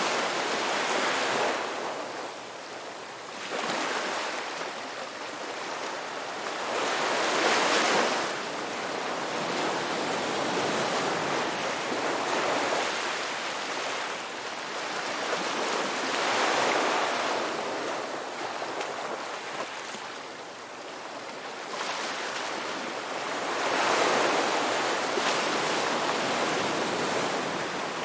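Ocean waves breaking and washing on a shore, a steady rush of surf that swells to a peak every six to eight seconds and eases between.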